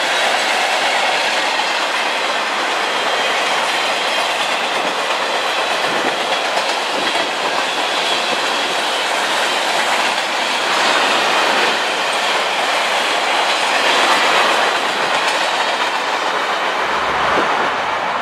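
CSX freight train's boxcars rolling past at speed: a steady noise of steel wheels on rail. About a second before the end it gives way to a lower, deeper sound.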